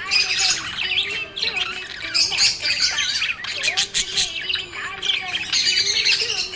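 Budgerigar chirping and warbling in a dense, unbroken chatter of quick high chirps and squawks.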